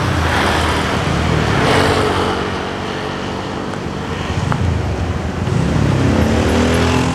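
Road traffic: motor vehicles driving past on an asphalt road, engine and tyre noise swelling and fading, loudest near the start and again toward the end.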